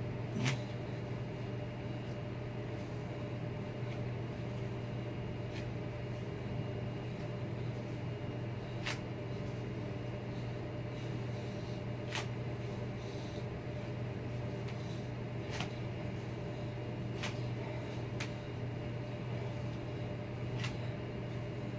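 A steady low mechanical hum with a sharp faint click every few seconds.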